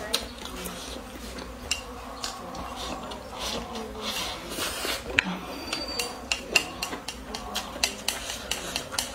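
Wooden chopsticks clicking and scraping against a porcelain rice bowl as rice is shoveled into the mouth: a run of light, sharp clicks, coming thicker in the second half.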